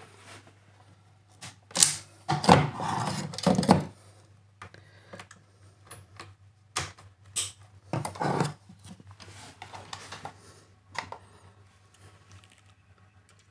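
Scattered plastic clicks and knocks from an RJ45 cable tester being handled and plugged into the ports of a Cat6 faceplate, in irregular clusters, over a faint steady hum.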